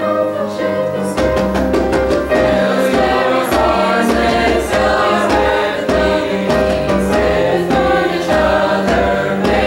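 Mixed high-school choir singing in parts with instrumental accompaniment; a low bass line comes in about a second in.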